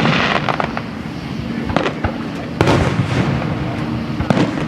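Aerial fireworks display: a string of booms and crackling, with the loudest burst about two and a half seconds in.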